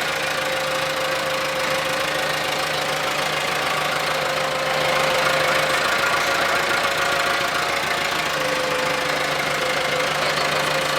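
The motor of a ride-on corn-box bulldozer digger runs steadily with an even mechanical hum and a steady whine, swelling slightly about five seconds in.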